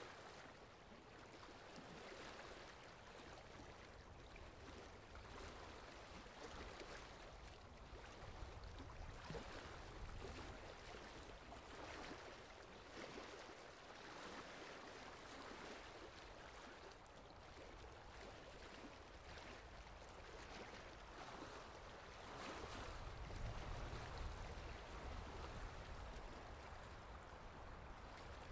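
Faint, steady rain: an even hiss with a low rumble that swells for a few seconds near the end.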